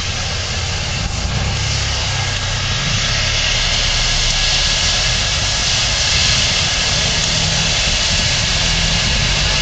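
Steam locomotive No. 3254 standing at the platform, giving off a steady hiss of steam with a low hum underneath.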